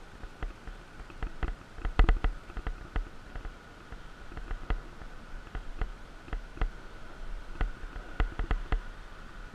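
Mountain bike rattling and knocking over a rough, muddy dirt track, heard through the camera mount as irregular sharp clicks and knocks, with a louder run of them about two seconds in. A steady high hum sits under it.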